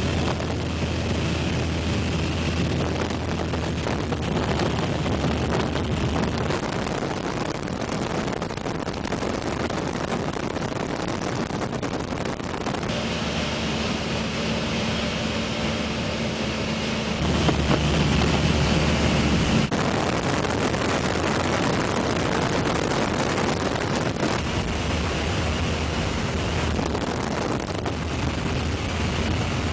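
Steady engine drone and wind noise of an aircraft in flight. The hum changes abruptly a few times and is loudest for about two seconds a little past the middle.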